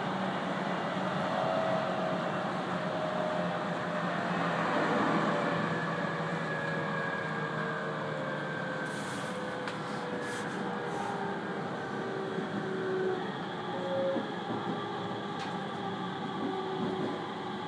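Aoimori Railway 701-series electric train running, heard from inside the passenger cabin: a steady rumble of wheels and running gear with a motor whine that falls slowly in pitch as the train slows. A few short clicks come around the middle.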